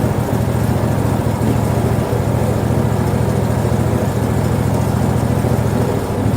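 A portable bandsaw sawmill's gas engine running steadily at an even pitch.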